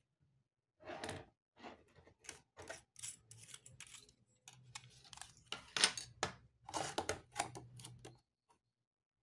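Irregular small clicks, scrapes and rubs as hands twist and work the rim and diaphragm of a Littmann stethoscope's metal chestpiece. The sounds stop about a second before the end.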